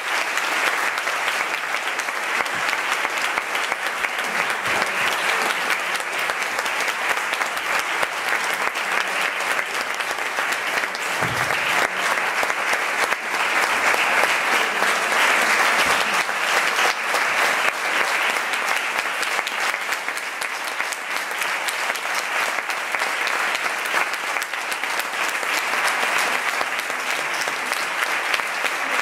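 Audience applauding, dense steady clapping that swells slightly about halfway through.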